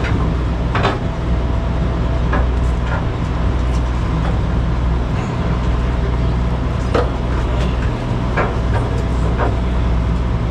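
A boat's engine running with a steady low drone, over a rushing haze, with a few scattered knocks.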